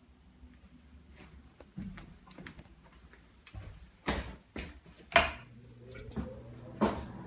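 Sharp clicks and knocks of a door and light switch being worked. A few seconds in, a small motor starts with a steady hum, its whine rising in pitch as it spins up, typical of a bathroom exhaust fan switched on with the light.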